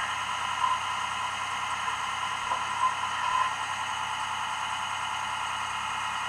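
Steady mechanical hum, even throughout, with a few faint brief noises over it.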